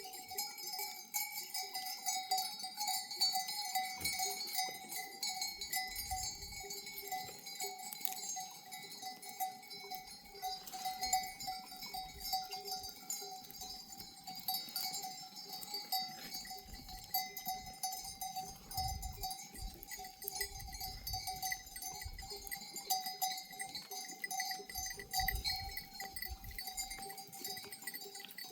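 Bells on a grazing flock of sheep clinking and ringing without pause, several bells sounding together.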